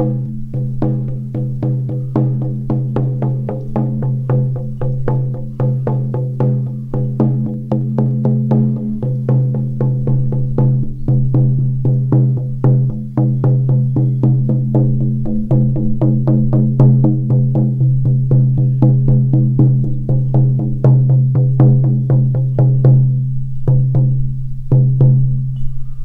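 A 14-inch horse-skin shamanic frame drum on an ash frame, struck with a firm beater with a fluffy head in a steady, even beat. The skin rings with a deep sustained tone under the strokes.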